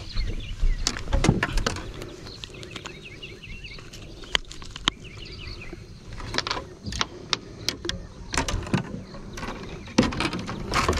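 Fishing-boat ambience: scattered sharp knocks and clicks over a steady low rumble, with a few short bird chirps about two to three seconds in.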